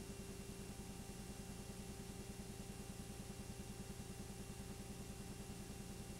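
Steady mechanical running noise with a fast, even low pulse, a constant hum and hiss, typical of a film projector running during the transfer of silent home-movie film.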